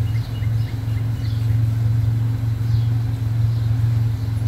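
The park train's engine running with a steady low drone, heard from a seat in one of its open passenger cars. A few faint, short high chirps sound over it.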